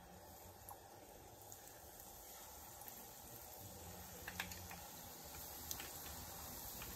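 Jalebi batter sizzling faintly in hot oil and ghee in a frying pan as it is piped in from a squeeze bottle, with a few small crackles in the second half.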